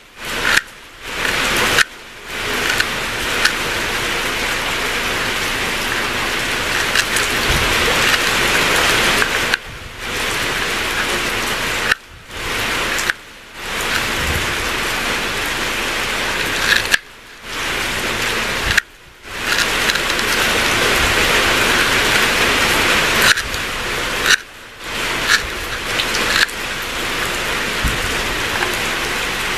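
A steady hiss like rain, broken by several short dropouts, with a few faint clicks.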